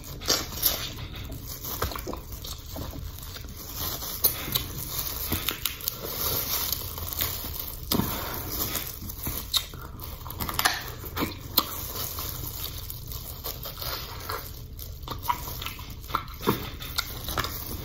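Close-up mouth sounds of a person eating a seafood boil: wet chewing and lip-smacking, with many sharp clicks and crackles throughout. Plastic-gloved hands peel shrimp and crab shell alongside.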